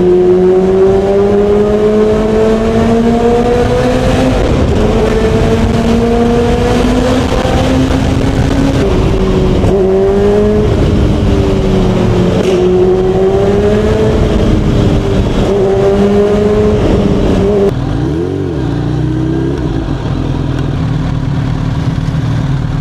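Supercharged inline-four of a Bimota Tesi H2 running loud through an aftermarket titanium exhaust with its baffle fitted, its pitch rising slowly, dipping and rising again several times as it rides. About 18 seconds in it drops to a lower, steadier idle.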